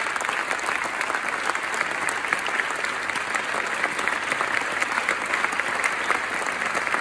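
Large audience giving a standing ovation: dense, steady applause in a big hall.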